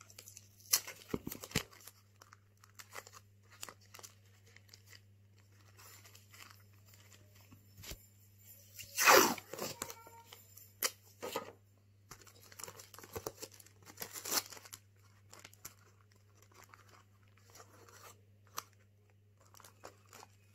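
Clear adhesive tape being pulled off its roll and torn, in short strips, with plastic crinkling as it is handled. The longest and loudest pull comes about nine seconds in.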